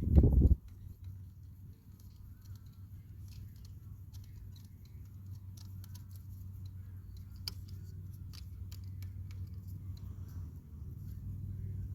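A heavy thump right at the start, then scattered light clicks and taps of hand-tool work on the e-bike's controller and its fittings, over a low steady hum.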